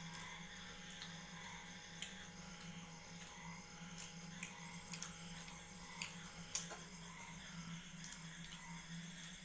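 Quiet eating by hand: scattered small clicks and smacks of chewing, and of fingers and food against steel plates, over a steady low hum.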